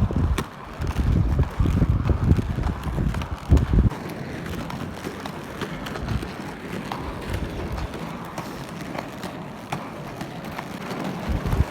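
Wind buffeting the microphone in loud, uneven low gusts for about the first four seconds, then a quieter steady noise with a few scattered clicks.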